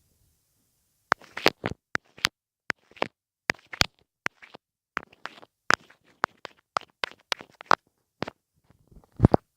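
ASMR mouth sounds: a quick, irregular run of short wet clicks and smacks, a few a second, starting about a second in, with a louder pair near the end.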